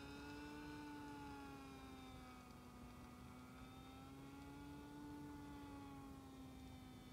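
Electric motor and propeller of a ZOHD Dart XL flying wing, droning faintly as it flies past. Its pitch wavers slowly up and down.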